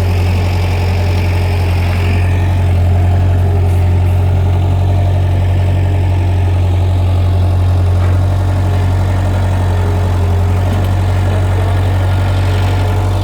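Bobcat skid steer loader's diesel engine running steadily, a loud, even low hum.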